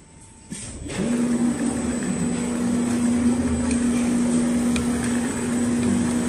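Richpeace automatic furniture sewing machine running with a steady motor hum, starting about a second in after a brief lull.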